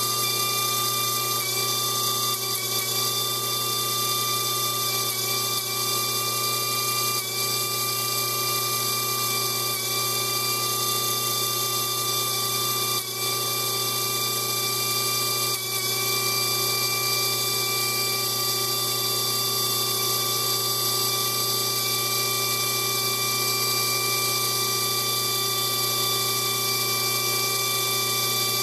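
Air die grinder mounted in a lathe tool post running at speed with a steady high whine and hiss, touch-grinding a No. 5 Morse taper adapter that turns slowly on the lathe in reverse.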